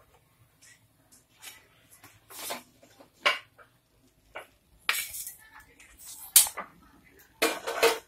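Steel kitchen utensils clattering: a perforated steel skimmer and pans knocking and scraping against each other in a string of short, sharp clinks and rattles.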